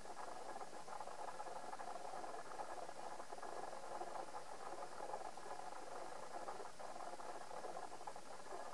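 Steady, featureless background hiss: room tone and recording noise, with no distinct events.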